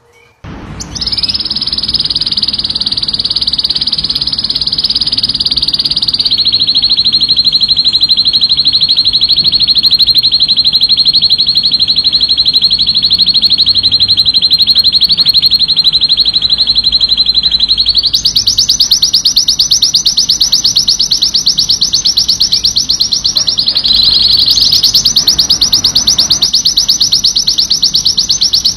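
Red mosaic canary in excited song: a long, unbroken run of very rapid high trills, switching to a new trill several times along the way.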